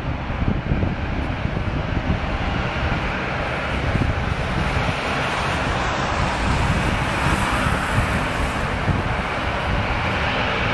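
Twin turboprop engines of a Dash 8 airliner running on the runway: a steady engine and propeller sound that grows a little brighter about halfway through.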